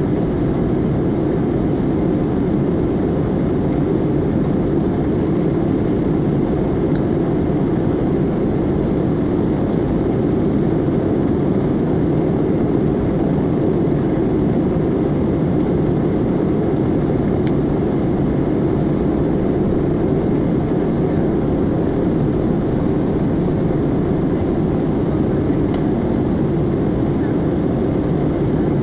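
Steady cabin noise inside an Airbus A320neo in flight: a low, even drone from its CFM LEAP-1A turbofans mixed with the rush of air over the fuselage, heard from a window seat over the wing.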